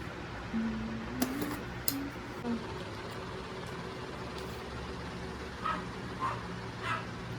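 A dog whining in short high-pitched whimpers, three times in the last couple of seconds, after two sharp clicks from the cardboard box being handled.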